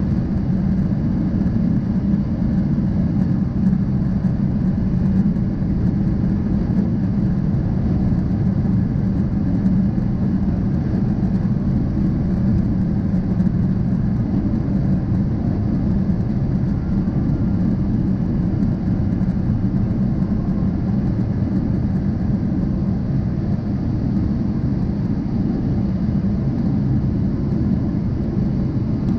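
Steady low rumble of a jet airliner's cabin in flight: engine and airflow noise heard from a window seat over the wing, during the descent toward landing.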